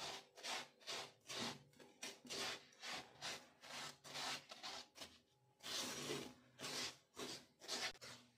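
Spatula scraping and stirring dry, crumbly crystallised sugar (boora) against the bottom of a nonstick pan while it cools, in a steady rhythm of rasping strokes, about two and a half a second, with a brief pause about five seconds in.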